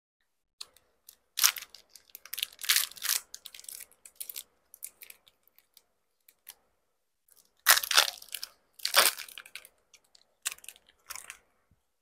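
Close-miked mukbang eating sounds of bánh ít lá gai, sticky rice cakes in leaf wrapping: chewing and wrapper-handling noises in three clusters of sharp bursts with quiet gaps between.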